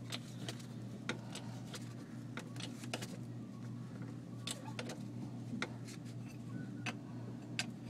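Scattered sharp clicks and light knocks at irregular intervals, about a dozen, over a steady low hum.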